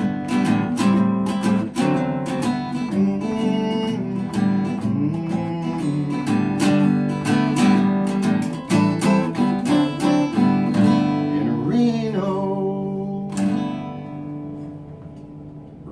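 Solo acoustic guitar strumming the closing chords of a song, then a final strum near the end that rings out and fades.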